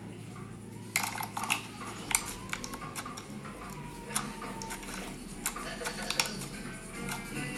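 Slime being squeezed and worked by hand, giving an irregular run of sharp clicks and pops that starts about a second in.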